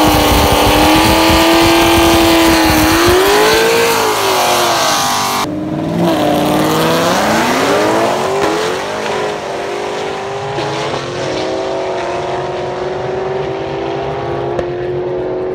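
Supercharged V8 of a 2014 Shelby GT500, fitted with a 4.0L Whipple blower, held at high revs during a burnout as the rear tyres spin. After a cut, the engine revs up through the gears as the car launches down the drag strip, then its steady note grows fainter with distance.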